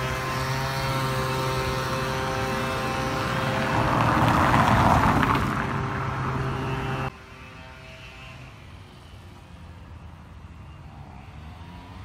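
Steady machine drone with several held tones, swelling in noise about four seconds in and cutting off abruptly about seven seconds in; quieter outdoor background noise follows.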